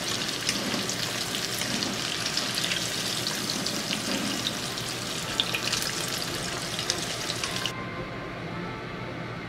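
Chicken karaage deep-frying in hot oil: a dense, crackling sizzle. Near the end it stops abruptly, leaving a quieter steady hum.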